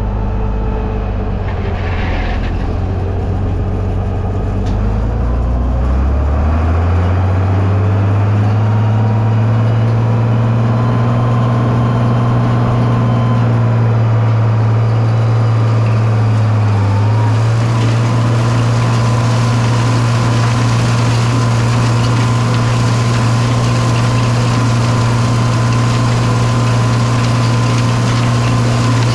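Tractor engine being throttled up, its pitch rising over several seconds and then holding steady at high speed, with a brief dip about seventeen seconds in.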